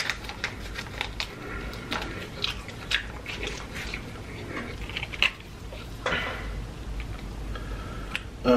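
Plastic sauce packet crinkling and being torn open in nitrile-gloved hands, a run of small sharp crackles and clicks, with a longer rustle about six seconds in.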